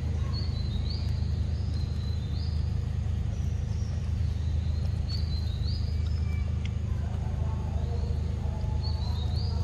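Forest ambience: a steady low rumble, over which a bird repeats short, high, rising chirps in runs of two or three.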